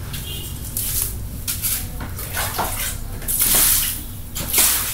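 Liquid splashing and sloshing in about five short bursts, the loudest about three and a half seconds in and again near the end, over a low steady hum.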